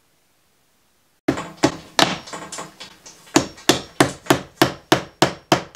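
Hammer striking flat-pack furniture during assembly: a loud, steady run of sharp blows, about three a second, starting abruptly about a second in after near silence, with a brief pause midway.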